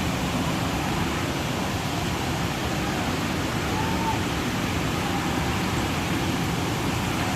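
Waterfall: falling water making a steady, even rushing noise with no break.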